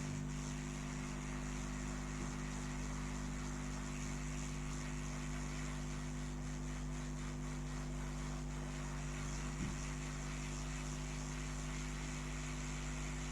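Hot air rework station blowing steadily with a constant hum, heating a phone's charging port to melt its solder.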